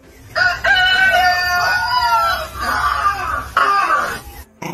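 A rooster crows one long crow that rises and falls at its end. Near the end a dog answers with a short howl.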